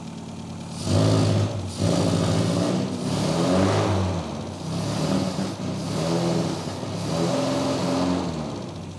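Austin/BMC A-series four-cylinder engine of a Mini on twin SU carburettors, revved in a run of about six short blips from idle just after a mixture adjustment, easing back toward idle near the end. It does not sound good on acceleration: the engine is not yet fully warm and the mixture is still being set.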